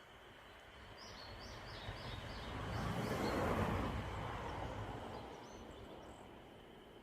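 A vehicle passing by, its noise swelling to a peak midway and then fading away. A bird gives a quick series of short chirps near the start, over a steady high insect drone.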